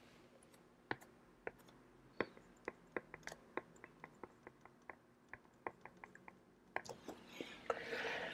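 Faint, sharp taps of a stylus tip on a tablet as a short line of text is handwritten, several taps a second in an uneven run.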